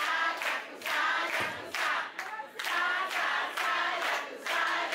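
An audience group singing together in a rhythmic pulse of about two beats a second, with hand clapping.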